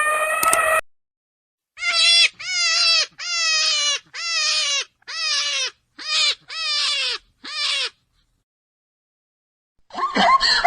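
An animal giving a run of about eight short, clear cries, each falling in pitch, after a brief tail of brass music at the start. A different animal sound begins near the end.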